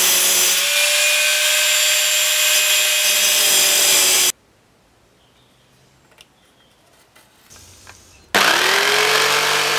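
Angle grinder running with a steady high whine over the grinding noise, cutting off suddenly about four seconds in. After a few seconds of near quiet with faint clicks, a Black & Decker jigsaw's motor starts, its whine rising quickly to speed, and runs on.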